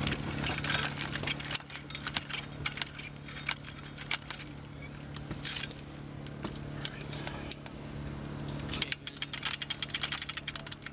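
Metal clinking and knocking from a tracked inspection robot and its tether being handled against a steel grate, in clusters that come thickest near the end. A steady low engine hum runs underneath.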